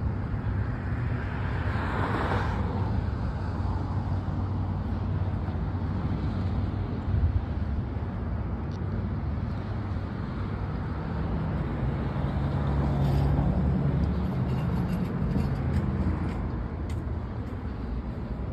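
Road traffic: cars passing, one about two seconds in and another around thirteen seconds in, over a steady low rumble.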